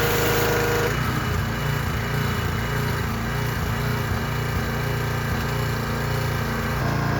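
Small petrol pressure-washer engine running steadily under spray, with a hiss. About a second in the hiss drops away and the engine note shifts, and near the end both change back.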